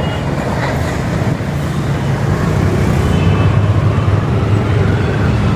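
Diesel locomotive running light engine, a steady low engine rumble.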